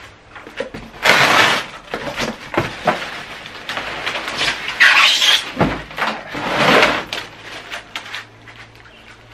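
Clear plastic wrapping crinkling and rustling, with the cardboard box scraping, in several loud bursts as a plastic-wrapped planer is pulled up out of its carton. There is a dull thump about halfway through.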